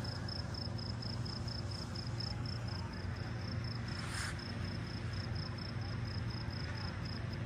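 A cricket chirping steadily, several short high chirps a second, over a steady low hum.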